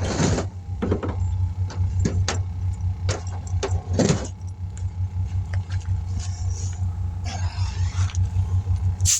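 Short blasts of compressed air from an air hose nozzle hissing at a tire's bead, over a steady low engine hum. The air escapes past the bead, which will not seat this way.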